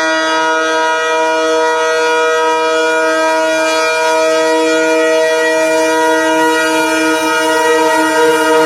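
Locomotive horn of a fast goods train, one long blast sounding a steady chord of several tones, held without a break and growing slightly louder near the end.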